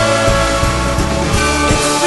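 Instrumental soft-rock music with a steady beat under sustained chords; no singing.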